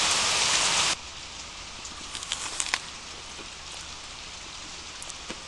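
Rain falling: a loud, dense downpour for about the first second that cuts off suddenly to a softer steady rain, as heard from indoors, with scattered drips and ticks.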